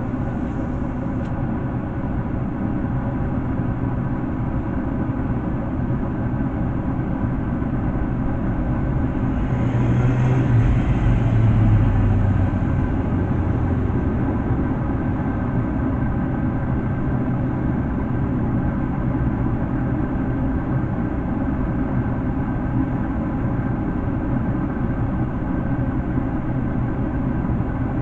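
Steady low rumble and hum of running machinery, swelling louder for a few seconds about ten seconds in.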